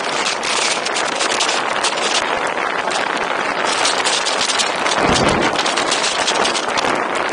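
Wind buffeting the microphone of an open-top car driving at speed, a steady rushing noise that flutters constantly. A heavier low gust booms about five seconds in.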